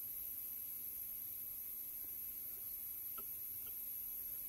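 Steady electrical mains hum with a faint high-pitched whine over it, and two faint ticks a little after three seconds in.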